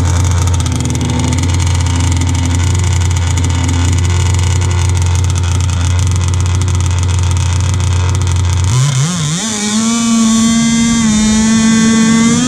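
Two-stroke single-cylinder Zenoah gas engine of an RC hydroplane, heard close up from onboard, idling steadily, then throttled up about nine seconds in: its pitch rises and holds at a higher, steady run as the boat gets under way.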